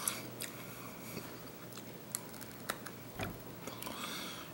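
A hard, decades-old Chiclets candy-coated gum piece being bitten and crunched between the teeth, giving a handful of sharp cracks spread over a few seconds.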